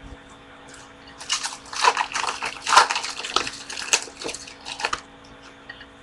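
A baseball card pack's wrapper being torn open and crinkled by hand: a crackling rustle that starts about a second in and stops about a second before the end.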